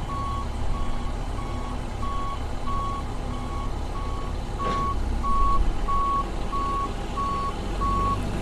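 Vehicle reversing alarm beeping at an even pace, about two beeps a second, over a low engine rumble.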